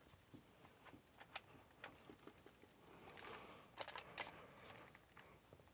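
Near silence with a few faint, sharp clicks and light knocks of gun parts being handled, several coming close together about four seconds in.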